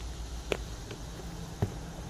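Two light knocks about a second apart, over a low steady hum, from firework cake boxes being handled.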